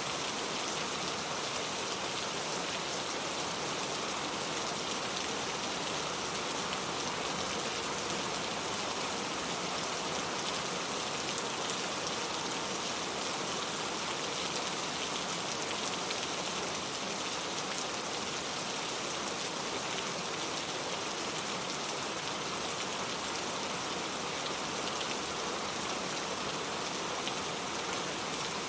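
Steady rain falling on a surface, an even hiss of many drops with no pauses or swells.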